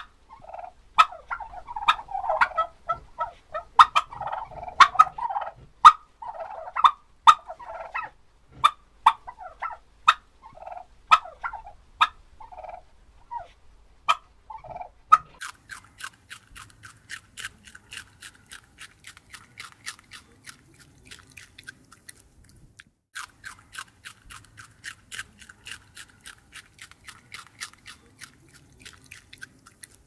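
Domestic turkeys gobbling and calling, with sharp clicks among the calls. About halfway through the calls stop and a lop-eared rabbit chews carrot in a fast run of crisp crunches, pausing briefly once.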